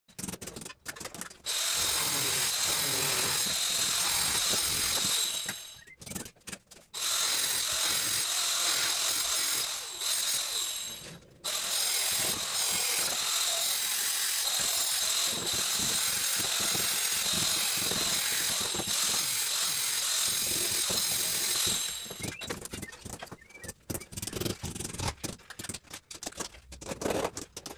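Handheld power tool running in three long stretches with a steady high whine, broken by two short pauses. It then stops, and only scattered taps and knocks of handling follow.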